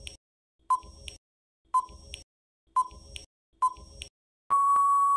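Countdown timer sound effect: short beeps about once a second, then one longer steady beep near the end that marks time up.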